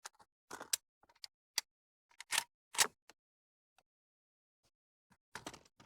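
Scattered short clicks and scuffs, with two sharper ones about two and a half and three seconds in and a small cluster near the end.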